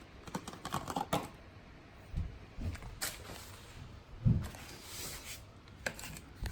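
Handling noises from a new oil filter being readied: scattered light clicks and rustles with a few soft thumps, the loudest about four seconds in.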